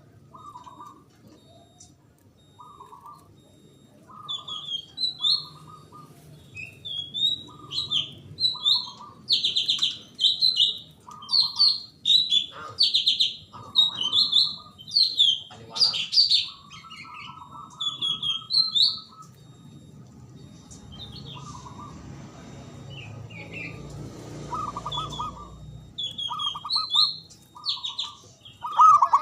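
Zebra dove (perkutut) cooing in a run of short, evenly repeated notes, with quick high chirps of small birds over it. A low rumble rises in the background for a few seconds past the middle.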